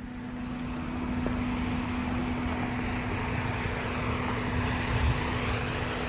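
An engine running steadily at a distance: a constant hum under a rushing hiss and low rumble that builds over the first second or so, then holds.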